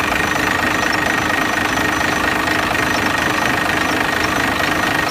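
Cummins 12-valve 6BT 5.9-litre inline-six turbodiesel with a P7100 injection pump, idling steadily.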